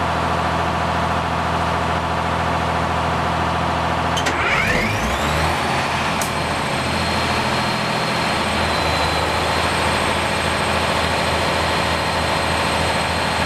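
Budd RDC rail diesel car's two original underfloor diesel engines running steadily at close range. About four seconds in the engine note changes and a whine rises, then holds steady, with a sharp click a couple of seconds later.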